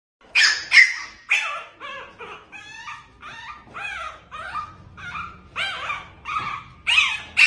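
Young puppy whimpering and yelping in a rapid series of short, high, pitch-bending cries, about three a second.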